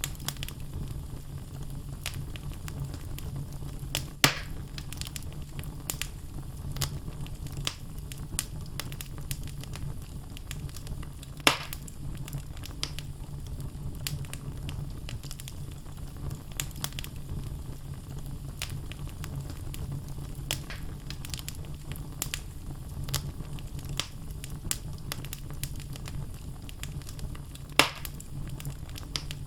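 Wood fire burning in a fireplace: a steady low rumble of flames with logs crackling throughout and three loud pops, at about 4, 11.5 and 28 seconds in.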